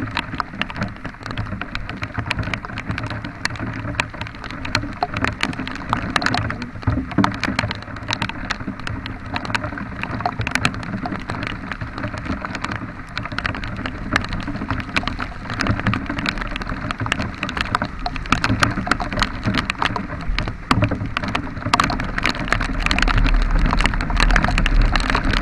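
Heavy rain falling, with many small drop hits close to the microphone, over the low steady sound of a vehicle on the move that grows louder near the end.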